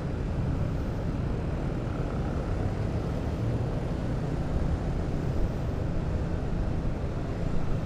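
Honda CB150R's single-cylinder engine running steadily at low speed in slow traffic, a constant low rumble with road and traffic noise.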